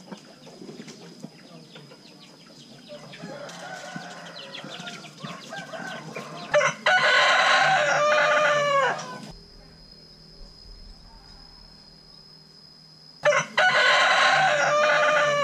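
Rooster crowing twice, each crow a long call of about two and a half seconds that drops in pitch at the end, the second starting about thirteen seconds in.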